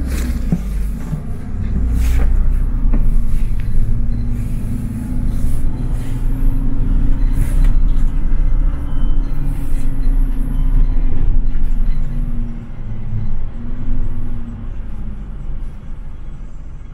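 City bus engine and road noise heard from inside the bus: a steady low rumble with an engine drone that rises and falls, a few brief rattles, and the whole growing quieter near the end.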